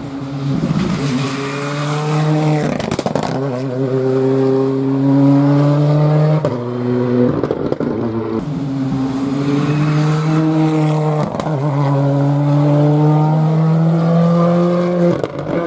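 Rally car engine under hard acceleration, its note holding nearly level between short breaks every few seconds as the driver changes gear, with sharp cracks at some of the breaks.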